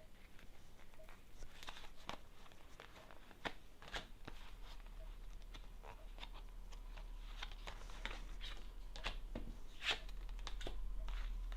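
Tarot cards being shuffled and laid out by hand: a run of irregular light clicks, slaps and rustles of card stock, the sharpest about ten seconds in, over a faint low hum.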